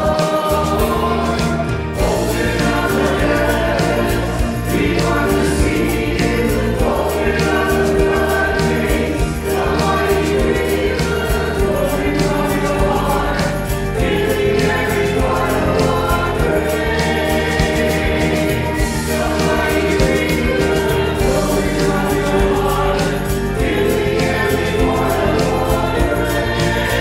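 Mixed male and female vocal group singing a contemporary worship song in harmony through microphones, over a keyboard-produced backing track with a steady drum beat and bass.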